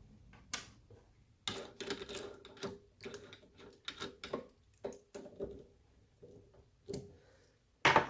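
Irregular short clicks, knocks and light clatter of tools being handled, as a drill bit is swapped and the drill is set up.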